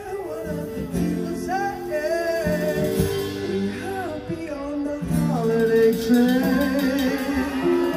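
Live band music: a sung melody over guitar and sustained instrumental accompaniment.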